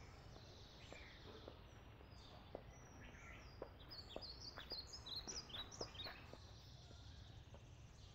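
Faint outdoor ambience: small birds chirping in short high notes that slide up and down, busiest around the middle, over a low steady hum. A few faint soft taps come at irregular intervals.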